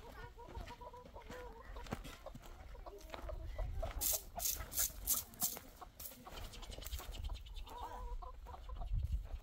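Domestic chickens clucking in short, wavering calls, with a quick series of sharp knocks about four seconds in.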